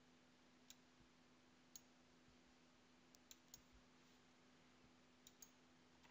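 Faint computer mouse clicks, about seven, some in quick pairs, over near-silent room tone with a low steady hum.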